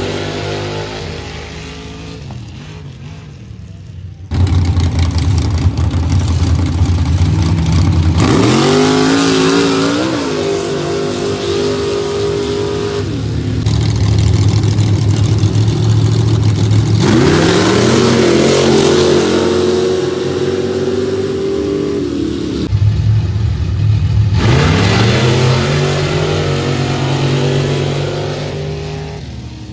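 Pickup truck engines racing on a dirt drag strip, in three runs cut together. In each run the engines sit loud at the line, then rise sharply in pitch as the trucks launch side by side.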